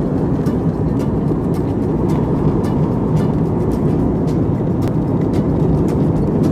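Steady airliner cabin noise in flight: the drone of engines and rushing air, heaviest low down, with faint high ticks about twice a second.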